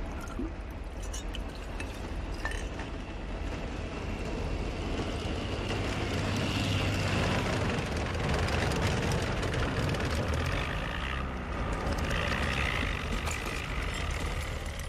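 Tank engines rumbling, with tracks squealing and clanking as the armour advances. The rumble grows louder over several seconds.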